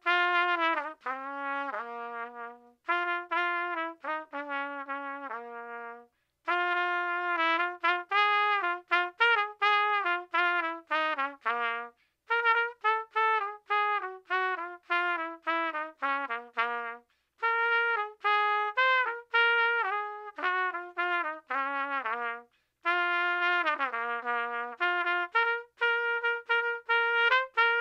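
Background music: a solo trumpet plays a melody one note at a time, in phrases a few seconds long with short breaks between them.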